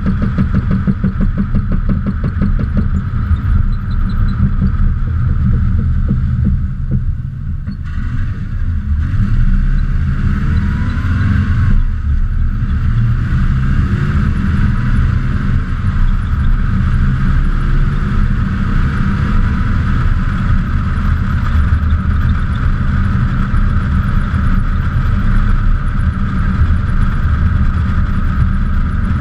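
A 2002 Subaru Impreza on the move, heard from a camera mounted on the front fender: steady, loud low road and wind rumble with engine noise, easing briefly about seven seconds in.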